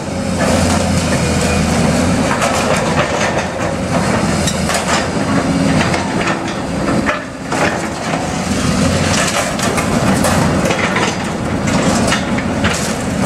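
Hyundai tracked excavator's diesel engine running steadily while its bucket crunches through wood and metal demolition debris, with many sharp knocks, cracks and clatters of breaking and falling material.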